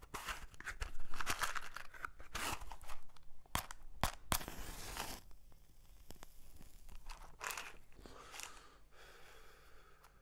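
Irregular rustling and crackling noises, busiest in the first half, with a few sharp clicks near the middle.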